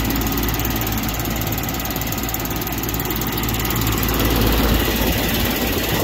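Goodman heat pump outdoor unit running in heat mode: the condenser fan blows a steady rush of air over a low hum, with a ticking from pine straw caught against the fan.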